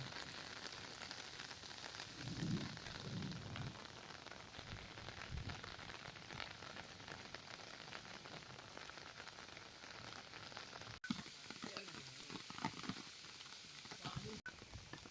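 Heavy monsoon rain falling steadily, a dense crackling hiss of drops. A brief low rumble comes about two seconds in.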